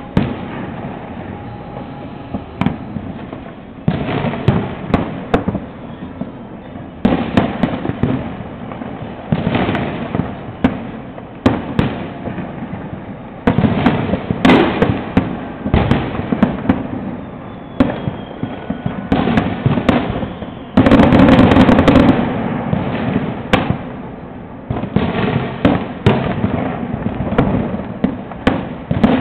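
Fireworks going off in a continuous barrage of bangs and rapid crackling firecracker pops, coming in clusters every second or two, with the loudest, densest volley about two-thirds of the way through.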